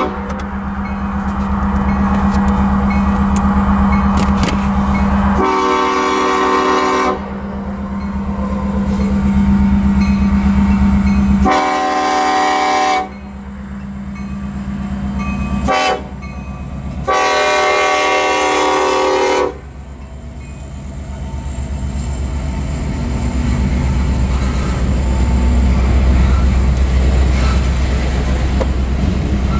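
KCSM locomotive #4079's horn sounding the grade-crossing signal: two long blasts, a short one, then a final long blast. Under it the crossing bell rings steadily. Near the end the locomotive's diesel rumble grows louder as it reaches the crossing.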